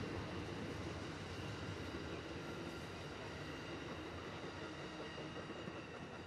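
Amtrak passenger train cars rolling along the track, a steady rolling noise that slowly fades as the tail of the train moves away.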